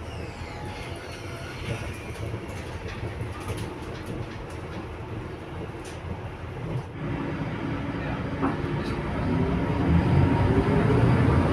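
Inside a city bus under way: the engine runs and the body and fittings rattle. Over the last few seconds the engine note rises and grows louder as the bus accelerates.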